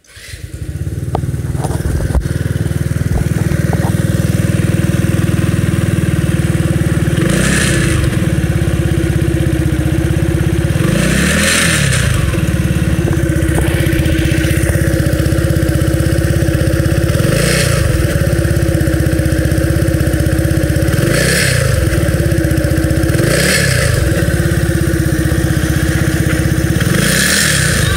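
An engine starts up and runs steadily, revved briefly about six times, each rev rising and falling in pitch with a burst of hiss.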